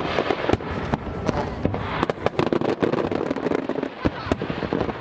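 Fireworks display: many sharp bangs and crackles of bursting shells in quick, irregular succession, over a continuous noisy background.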